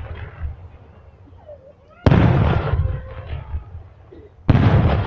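Two loud meriam talang cannon blasts, about two and a half seconds apart, each booming and dying away over about a second, with people shouting between and after them.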